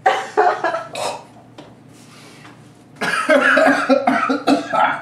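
A man coughing and gagging on a bite of pickled pig's foot. A burst of coughs comes at the start, then about three seconds in a longer run of retching sounds into a trash can.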